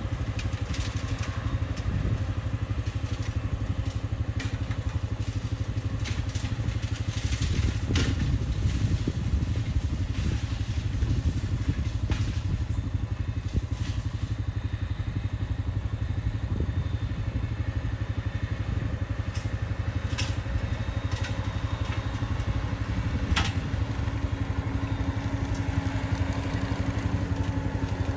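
Skid steer engine running steadily under load while its brush-cutting attachment mows through brush, with frequent sharp cracks and snaps of sticks and stems being cut and crushed.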